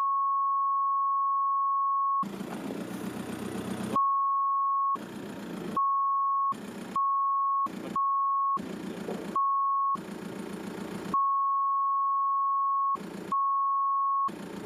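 A steady, high censor bleep tone, switched on and off about seven times to mask the audio. In the short gaps between bleeps, an idling car engine comes through.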